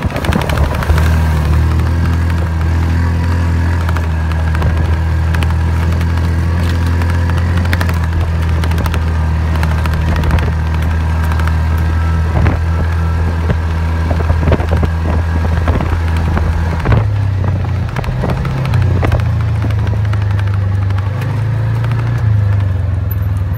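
A vehicle's engine running steadily as it drives over a rough grassy track, with scattered knocks and rattles from the bumps. The engine note shifts about three quarters of the way through.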